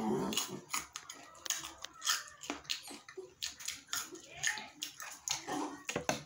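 Chewing and crunching of crisp mango chunks close to the microphone: a quick run of crunches and wet mouth clicks.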